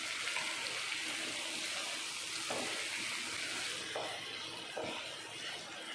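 Boiled black chickpeas and onions sizzling in oil in a pan as a wooden spatula stirs them: a steady hiss with a few soft scrapes of the spatula.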